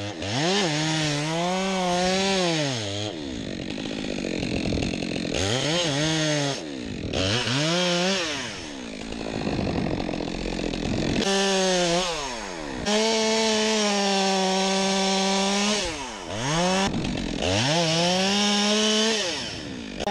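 Stihl two-stroke chainsaw cutting into a standing tree trunk, the throttle opened to high revs and let off again about six times, the engine note dipping between cuts and rising again as the chain bites into the wood.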